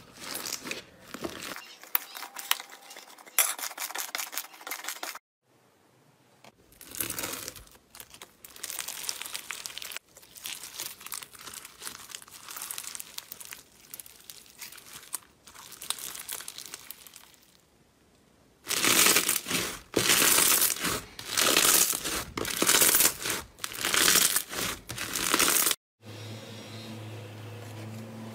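Hands squeezing, stretching and pressing slime, including crunchy slime packed with small beads, making sticky crackling and popping in a series of short clips. The loudest part is a run of crunchy squeezes about once a second, two-thirds of the way through.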